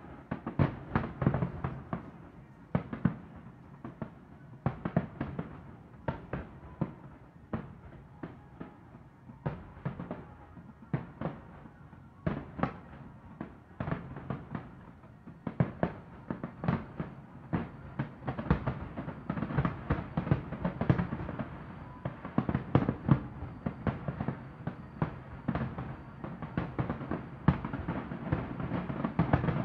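Aerial fireworks shells bursting in quick succession, sharp bangs one or two a second at first, packing closer into a near-continuous crackling barrage from about halfway through.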